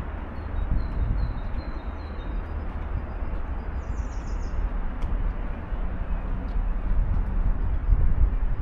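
Outdoor urban ambience: a steady low rumble and hiss, with small birds chirping above it in a few short high notes early on and a brief trill about four seconds in.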